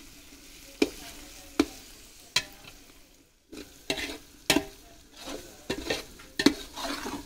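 A long steel ladle scraping and knocking against a large metal pot as onion and ginger-garlic masala is stirred over a wood fire, with about seven sharp clinks and a soft frying sizzle underneath. The sound drops almost out for a moment about three seconds in.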